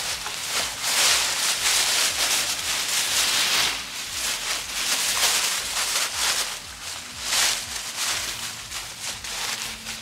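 Dry fallen leaves rustling and crunching as raccoons move and scuffle through them, in uneven surges.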